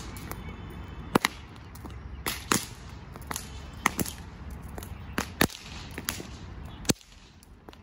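Long handled whips being cracked by several people: about a dozen sharp, loud cracks at irregular intervals, some coming in quick pairs, over a steady low background rumble.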